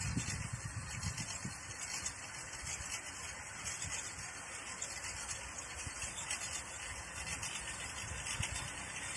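Homemade electric Krot cultivator running steadily, its electric motor driving goose-foot tines through virgin soil.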